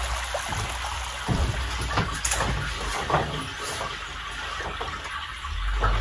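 Small stream trickling steadily, with a few faint short scrapes over it.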